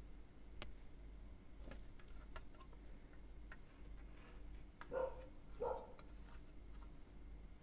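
Hands pressing cotton wool into a plastic Epson waste-ink pad tray: faint handling noise with scattered small clicks, and two louder soft knocks of the plastic tray about five seconds in, half a second apart.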